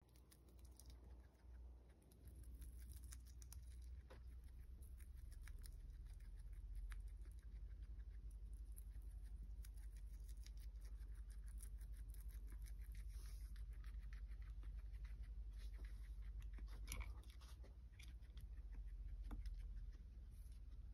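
Guinea pig chewing bitter melon (goya) leaves very fast: a rapid run of small crisp snipping and crunching clicks, over a low steady hum.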